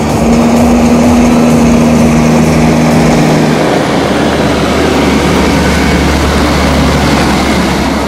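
Deutz-Fahr Agrotron 630 TTV tractor's six-cylinder diesel pulling a two-axle grain trailer. The steady engine note gives way about halfway through to a louder rumble and tyre noise as the tractor and trailer pass close by on the concrete.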